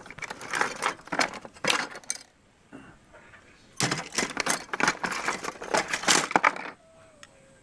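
Small hard parts clattering and clicking against each other as they are handled and rummaged through, in two spells with a pause between.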